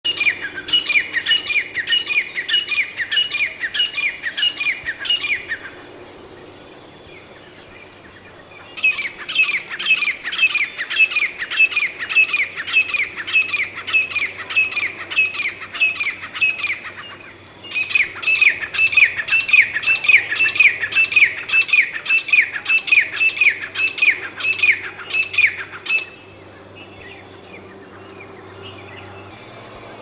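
Grey francolin calling: three long bouts of loud, rapidly repeated notes, each note falling in pitch, about two or three notes a second. The bouts are separated by short pauses.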